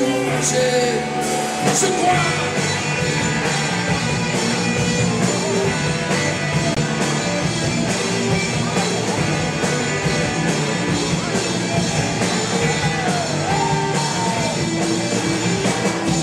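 Rock band playing live: electric guitars, bass and drums in a loud, steady passage without sung lyrics.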